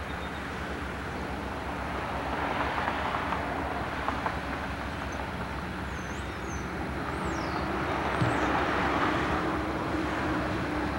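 Norfolk Southern diesel locomotive approaching at the head of a freight train. Its engine makes a steady low drone that grows a little louder in the second half, with a few faint high chirps over it.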